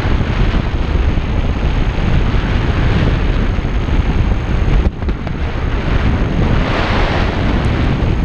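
Wind of the glider's airspeed buffeting the action camera's microphone in flight: a loud, steady rush with a heavy low rumble, dropping briefly about five seconds in.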